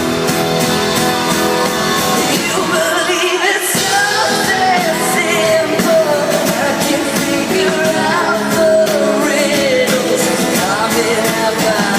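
Live band music with a sung lead vocal, the voice holding and bending long notes over guitar and drums.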